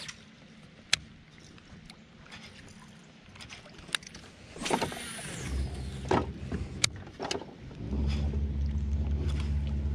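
A baitcasting reel whirs as a topwater popper lure is cast, with the whir falling away as the spool slows, along with a few sharp clicks. From about eight seconds in, a boat motor's steady low hum takes over.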